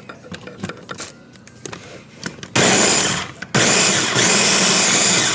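Ninja electric food chopper pulsing on raw shrimp and egg, chopping them to a paste. A few light clicks and knocks come as the motor head is fitted. About two and a half seconds in the motor whirs loudly in a short pulse, stops for a moment, then runs again in a longer pulse.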